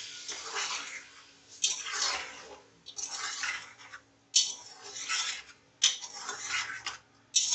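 A spatula stirring and scraping spiced beef frying in oil in an aluminium pressure cooker pot: a run of scraping strokes, each starting sharply, one about every second and a half.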